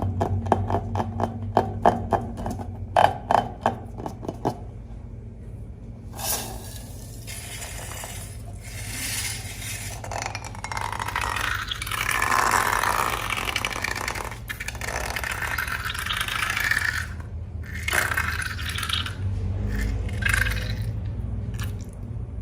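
A quick run of sharp clicks for the first few seconds, then a long stretch of scraping and squishing that swells and fades: slime and balloons being handled and mixed.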